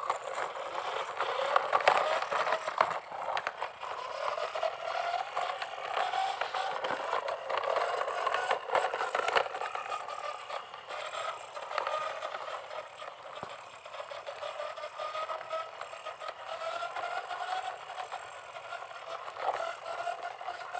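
Small electric motor of a toy vehicle whining, its pitch drifting slowly up and down, with plastic rattling and scraping throughout.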